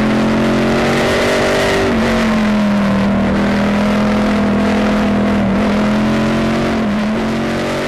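Pontiac GTO race car's V8 engine heard from inside the cockpit at racing speed. It runs hard and steadily, its pitch dipping briefly about two, five and a half and seven seconds in.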